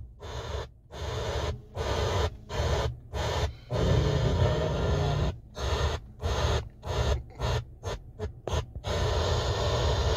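The 2019 Chevy Impala's factory car radio is being tuned up the FM dial with its knob. It plays short bursts of hissy radio sound, each cut off suddenly by a brief mute as the tuner steps to the next frequency.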